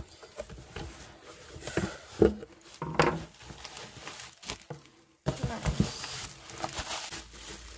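Bubble wrap and cardboard box flaps rustling and crinkling as a package is unpacked by hand, with scattered light knocks and taps. The sound cuts out briefly just past the middle, then the rustling resumes.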